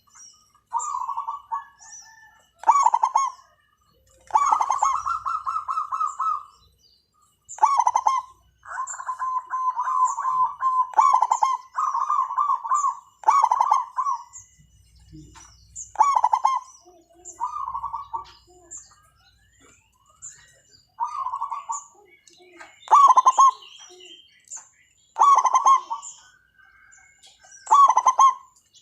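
Zebra doves calling over and over: phrases of rapid, pulsing coos, some with a harsh rasping stroke, about every second or two, with short high chirps between them.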